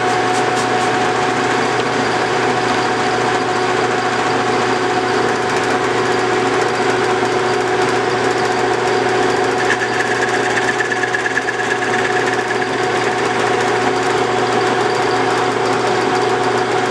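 Metal lathe running at speed, with a steady whine and hum from its motor and gearing, while the tool takes a facing cut across the end of an aluminium bar. A faint rasp joins in about ten seconds in and fades out two or three seconds later.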